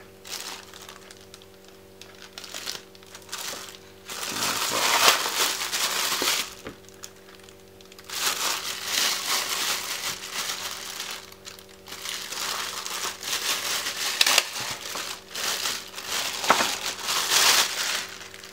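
Clear plastic wrapping crinkling as it is pulled off a camera lens and its lens hood by hand. The rustling comes in three bouts, starting about four seconds in.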